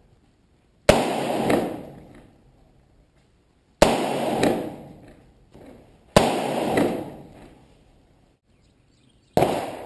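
Four single AR-15 rifle shots a few seconds apart, each a sharp crack trailing off in about a second of echo.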